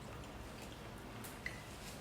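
Faint eating noises: soft wet mouth sounds and a few small clicks, with a light clink, like a spoon on a plate, about one and a half seconds in.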